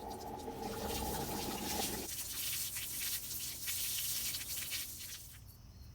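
Socket ratchet working the drain plug of an RV water heater tank, with a rapid grinding click for about the first two seconds, then water hissing and splashing out of the tank until near the end.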